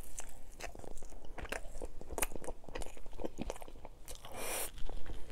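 A person biting into and chewing a sope, a fried masa cake, with many small crisp crunches; a brief hiss about four seconds in.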